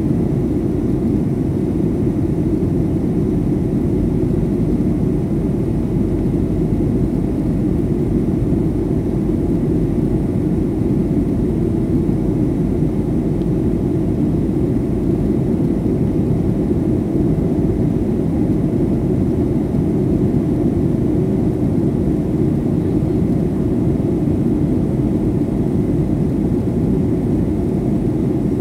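Steady jet engine and airflow noise inside a Boeing airliner's cabin during the climb after take-off, a constant low rumble.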